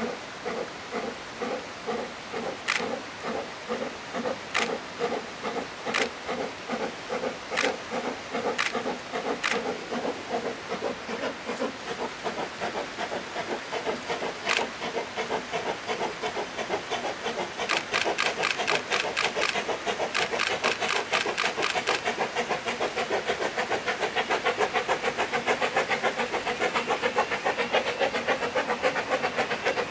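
Narrow-gauge steam locomotive working a train, its exhaust chuffing in a regular beat that comes faster and grows louder in the second half, with steam hissing. A few sharp metallic clicks sound in the first half.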